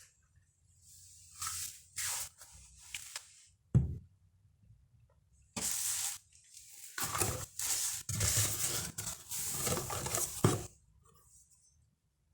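Packaging rustling and crinkling in irregular handfuls while a product is unboxed, with one sharp knock about four seconds in.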